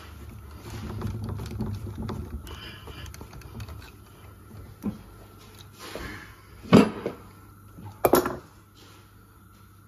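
Injector-sleeve rolling tool being turned by hand in a cast-iron cylinder head: a low scraping rumble with small metallic clicks for the first few seconds, as the roller is not yet biting in the sleeve. Near the end come two short, sharp, loud sounds about a second apart.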